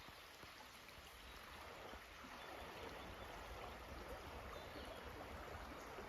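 Faint, steady rushing of a stream of running water.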